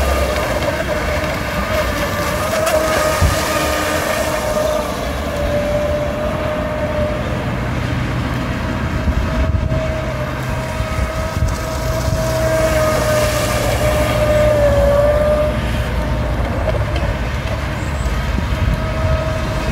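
Water-cooled brushless electric motor of a radio-controlled speed boat, run on a 3S battery, whining steadily at speed over the hiss of its spray. The whine grows louder as the boat sweeps nearer, around two-thirds of the way through, and its pitch sags a little twice.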